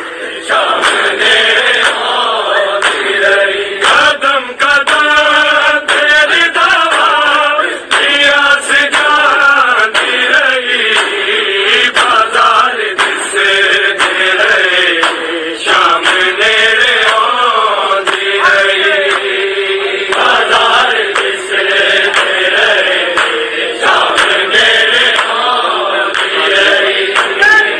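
A noha, a Shia mourning lament, chanted in Punjabi with long, wavering held notes.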